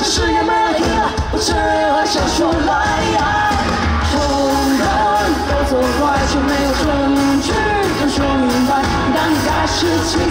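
Live pop song: a lead vocal sings a melody over a full band, with drum hits throughout.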